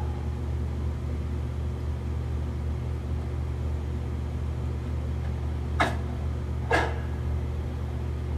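A steady low hum, with two short sharp sounds about a second apart in the last third.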